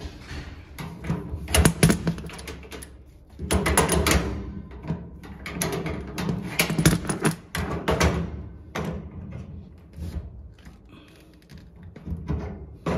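Irregular metal clinks and knocks of two adjustable wrenches on a gas connector nut and fitting as the nut is tightened. The handling comes in clusters, busiest in the first eight seconds or so, then tails off into fewer, fainter clicks.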